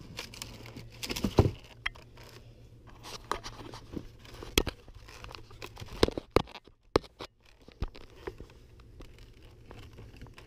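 Scattered crunching and crackling clicks close to the microphone, coming irregularly rather than at a steady pace. The sharpest snap is about a second and a half in, with a cluster of clicks around six seconds.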